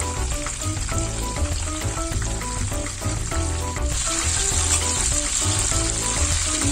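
A whole chicken deep-frying in hot oil in a wok over low heat: a steady sizzle that gets louder about four seconds in. Background music with short melodic notes and a low beat plays over it.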